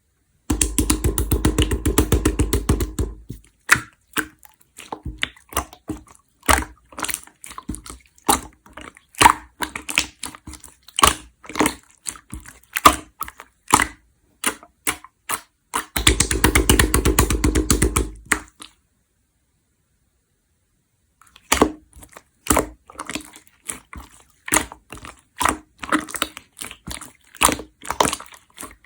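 Clear slime being squished and folded by hand, giving sharp wet clicks and pops. Twice there is a few seconds of fast, dense crackling, and there is a short break in the sound about two-thirds of the way through.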